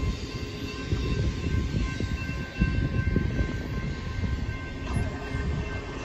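Union Pacific intermodal freight train rolling past: a steady low rumble with uneven clatter of wheels on the rails, and faint steady high tones above it.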